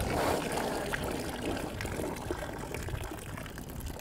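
Kiln-hot ceramic pot sizzling as it comes out of the obvara yeast-and-flour mixture, with liquid pouring and dripping off it. The sizzle eases a little towards the end.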